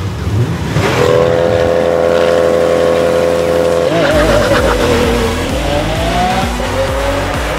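Two race car engines revving, held at a steady high pitch on the start line. About four seconds in they launch, with tyres squealing, and the engine pitch wavers and then rises as the cars accelerate away.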